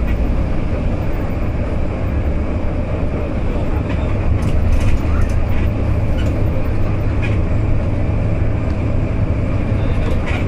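Inside a moving bus at highway speed: a steady low rumble of engine and road noise, with a few light rattles a third and a half of the way in.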